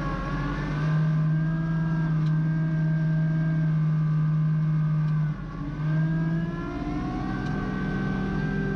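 Kubota LX2610 compact tractor's three-cylinder diesel engine running steadily under load while the front-mounted snowblower throws snow. About five seconds in the engine note dips briefly, then rises again.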